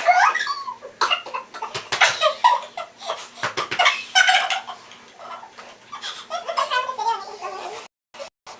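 Girls laughing and giggling in short bursts. The sound cuts out briefly near the end.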